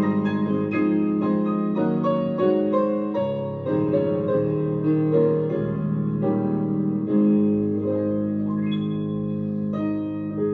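Piano music: slow, sustained chords, with a new chord or note about every second.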